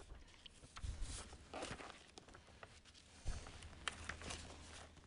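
Faint rustling and flicking of book pages being leafed through by hand, with a few short sharp knocks.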